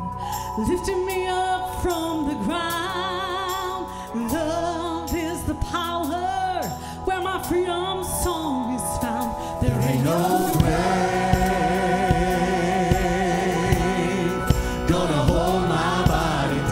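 Live gospel worship song: a woman sings lead over a band, with vibrato on her held notes. About ten seconds in, the band comes in fuller and louder as the chorus begins and other voices join.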